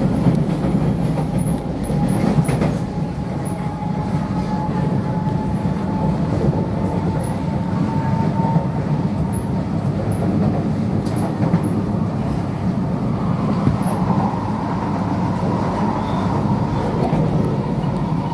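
Cabin sound of a Kawasaki-CRRC Sifang C151C electric metro train running along elevated track: a steady rumble of wheels on rail, with a faint motor whine that slowly rises in pitch and a few light clicks.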